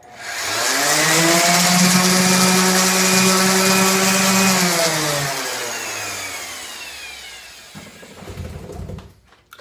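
Electric power sander switched on, running at a steady whine for about four seconds, then switched off and spinning down with falling pitch. A few low knocks near the end.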